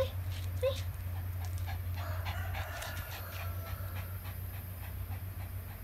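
A small dog panting with its tongue out, short rapid breaths over a steady low hum.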